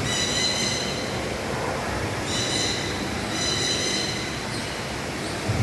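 Indoor rainforest ambience: a steady hiss of falling rain and water, with three shrill, held high squeals about a second, half a second and a second long.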